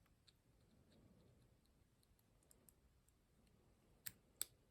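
Near silence broken by faint, scattered clicks of a lock pick working the pins of a six-pin ZI Ikon padlock, with two sharper clicks about four seconds in.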